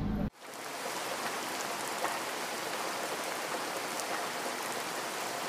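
A steady, even hiss like rain, with faint scattered ticks, starting abruptly about a third of a second in when the previous sound cuts off.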